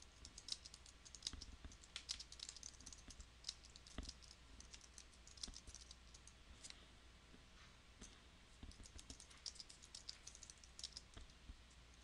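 Faint computer keyboard typing: runs of quick keystroke clicks, with a short lull just past the middle.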